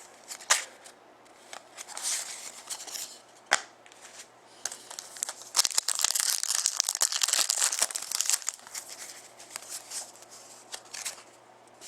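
Crinkling and tearing of a trading-card pack wrapper being handled and opened, with a few sharp clicks and a dense stretch of crinkling in the middle.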